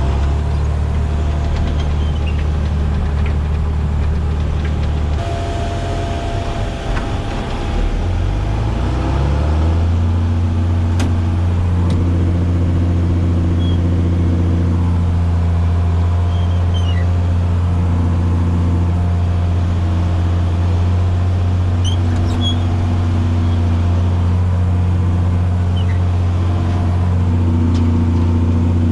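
Farm tractor's diesel engine running steadily under load. Its pitch drops and wavers for a few seconds, then rises about ten seconds in and holds steady.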